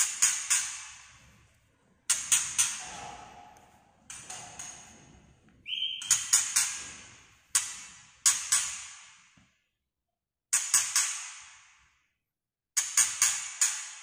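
White-rumped shama giving its sharp clicking 'tak' alarm-type calls in quick bursts of two to four clicks, repeated every couple of seconds. One short whistled note comes a little before the middle.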